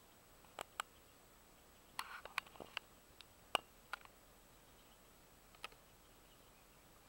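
Quiet background broken by about eight short, sharp clicks and taps at irregular intervals, several of them bunched together around two to three seconds in.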